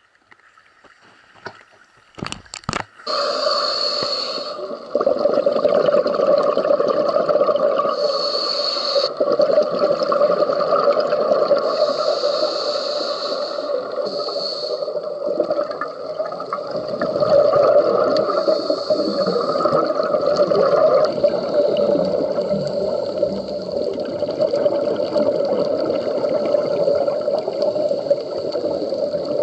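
Underwater sound picked up through an action camera's housing during a scuba dive: a steady muffled hum and wash, with the hiss and gurgle of the divers' exhaled regulator bubbles coming in bursts every few seconds.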